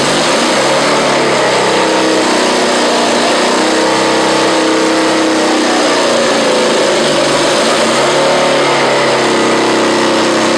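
R12 twelve-rotor, three-bank rotary engine running on a test stand, its note rising and falling as it is revved.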